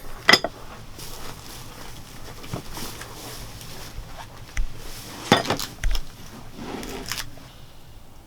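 Scattered clinks and knocks of cooking utensils and cookware during food preparation: a few sharp hits spaced a second or more apart, the loudest two close together past the middle.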